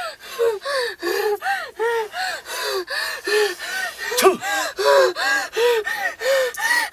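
A woman's rhythmic, high-pitched panting gasps, about two to three a second, each rising and falling in pitch, as she acts out being possessed by a spirit.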